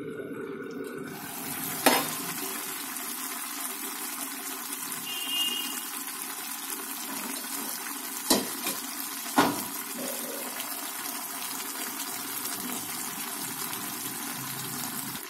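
Diced potatoes and green peas simmering in water in a steel pan on a gas burner: a steady bubbling hiss while the potatoes cook through. A few sharp clicks sound about two, eight and nine seconds in.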